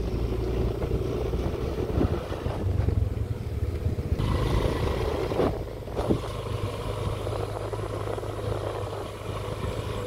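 Motorcycle engine running steadily while riding, with a few knocks from bumps, once about two seconds in and twice around six seconds in.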